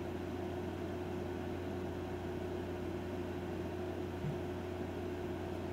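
A steady low hum with an even hiss and a faint steady tone above it, like a running fan or appliance in the room; a soft bump about four seconds in.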